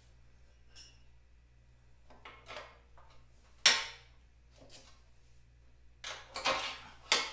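Metal tools and parts clinking and knocking at a motorcycle's front wheel hub and brake plate, in a few separate sharp strikes, the loudest about halfway through and a quick cluster near the end.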